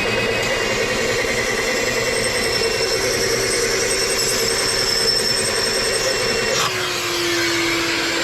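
Walnut media blaster blasting crushed walnut shell into the carbon-clogged intake ports with compressed air, while a shop vacuum draws the media out: a loud, steady hiss over a motor whine. About six and a half seconds in the sound changes sharply and a single lower, steady whine carries on.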